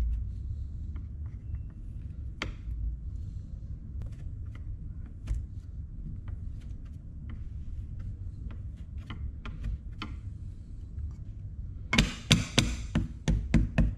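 A plastic ruler edge pressing and slicing into a slab of kinetic sand, with faint scattered ticks over a low rumble. About two seconds before the end it turns to loud sharp taps, about four a second, as the ruler chops down through the sand onto the table.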